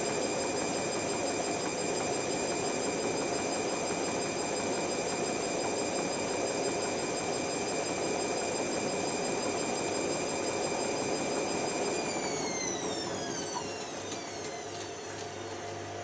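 Hotpoint HV5L125 washing machine spinning, its motor giving a steady high whine over a rushing drum noise. About twelve seconds in, the whine glides down in pitch and gets quieter as the drum slows. The motor is running at unstable speeds, a fault that began a few cycles after a replacement board was fitted.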